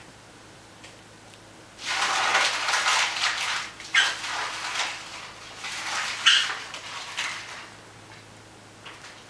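Wire Fox Terrier puppies scuffling on a blanket as they crowd in to nurse: rustling and scrabbling that starts about two seconds in and dies down by about seven seconds, with a couple of short, high squeaks.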